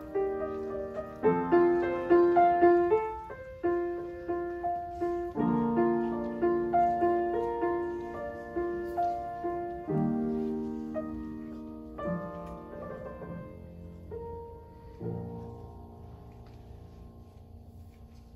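Solo upright piano playing a slow, quiet piece of separate notes and chords. About fifteen seconds in it ends on a held chord that slowly fades away.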